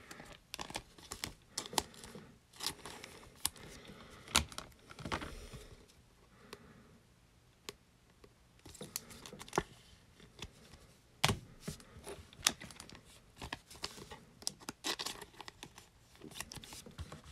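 Trading cards being handled and slid into thin plastic penny sleeves: scattered crinkles, rustles and light clicks, with a near-silent stretch in the middle.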